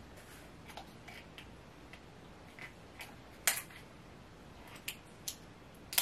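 Small clicks and scratches of a hot sauce bottle's seal and cap being worked open by hand, with the sharpest click about three and a half seconds in.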